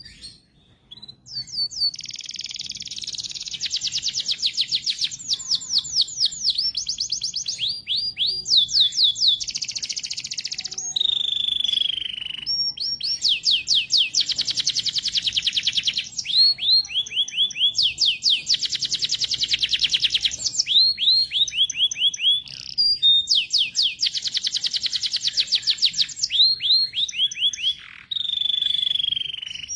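Domestic canary in full song: a long, nearly continuous run of rapid high trills and rolling repeated notes, with a couple of longer falling whistles, in phrases separated by brief pauses.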